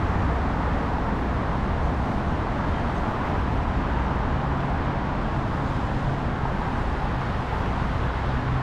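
Steady road traffic noise from a wide multi-lane city road, an even wash of passing-car sound with no single vehicle standing out.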